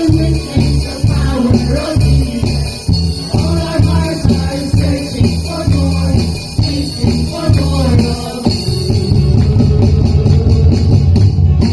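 Church singing with band accompaniment: voices carrying a melody over a heavy bass line and a steady beat, getting fuller and louder near the end.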